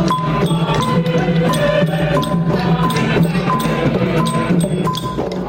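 Music with tuned percussion: a short high tapped note repeats about every three-quarters of a second over a steady low drone.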